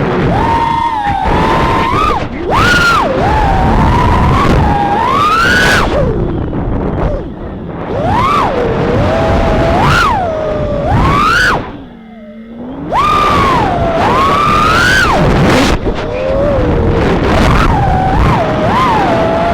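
Brushless motors and propellers of a 3-inch FPV quadcopter whining in flight, the pitch swooping up and down with every throttle change. About twelve seconds in the throttle is chopped, the whine falls low and quiet for a moment, then it punches back up.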